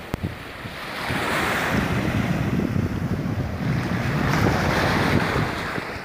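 Small Atlantic Ocean waves breaking and washing up the sand at the water's edge, swelling twice, with wind buffeting the microphone.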